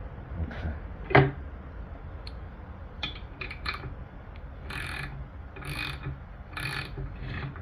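Ratchet wrench clicking as it turns a bolt in, pressing a cut pin against a rust-seized pin to push it out of the wood chipper's motor joint. One sharp click about a second in, a few light clicks, then four short rasping ratchet strokes about a second apart.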